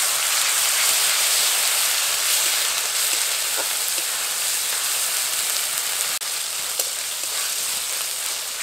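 Ground ginger, garlic and green chilli paste with fried onion sizzling steadily in hot mustard oil in a kadai as it is stirred, with a few light clicks.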